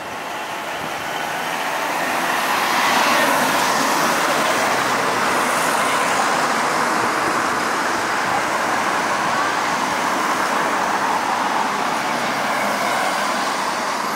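Road traffic: cars passing close by on the street. Their tyre and engine noise swells over the first couple of seconds, holds steady and eases off near the end.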